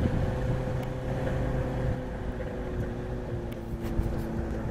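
UAZ 4x4 off-road vehicle's engine running steadily, its pitch easing down a couple of times, with a few short knocks near the end.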